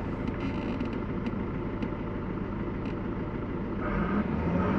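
Diesel engine of a CAT wheel loader running close by as it tips a bucket of concrete mix (sand and gravel) into the vehicle, heard from inside the cab. The material pours with a hiss and a few scattered clicks. About four seconds in, the engine gets louder.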